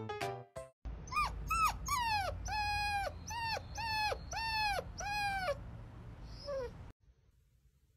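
Young puppy giving a run of about nine short, high-pitched whimpering cries, each sliding down in pitch at its end, with a last faint one after a short pause.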